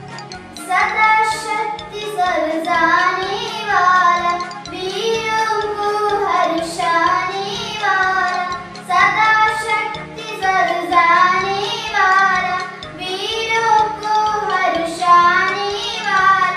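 A young girl singing a patriotic song solo over a recorded instrumental backing with a steady beat; her voice comes in about a second in.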